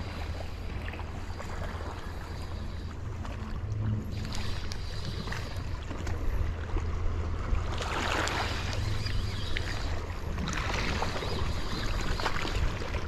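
Small waves washing against the shore, with a steady low wind rumble on the microphone; the wash swells about eight seconds in and again near eleven seconds.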